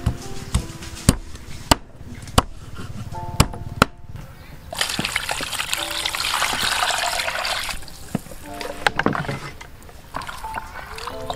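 A knife chopping through a fish on a wooden cutting board, seven sharp chops in the first four seconds. Then water pours into a plastic basin over the cleaned fish for about three seconds, followed by water sloshing as hands wash the fish. Soft background music plays throughout.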